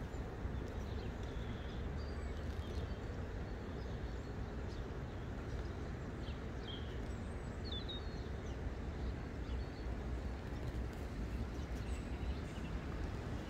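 Outdoor ambience: a steady low rumble of background noise, with short, high bird chirps now and then.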